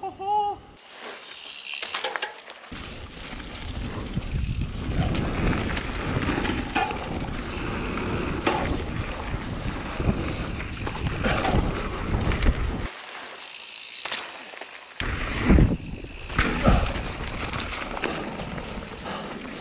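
Mountain bike ridden fast down a dirt trail: a steady rumble of tyres, chain and frame rattle. The noise drops out briefly near the start and for about two seconds in the middle while the bike is in the air over jumps, and two heavy thumps follow as it lands.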